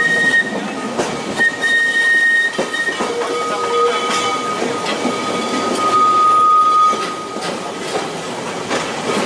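Manx Electric Railway electric tram under way, heard from aboard an open car: steel wheels rumbling and clicking over the rails. A high-pitched wheel squeal comes and goes, once about a second and a half in and again, lower, around six seconds in.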